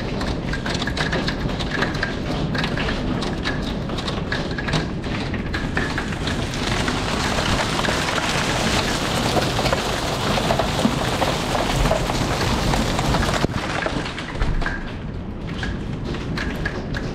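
Hailstorm: hailstones ticking sharply and unevenly against window glass. About six seconds in, the dense, steady rush of hail falling outside is heard directly through the opened door. It cuts off suddenly a few seconds before the end, and the ticking on the glass returns.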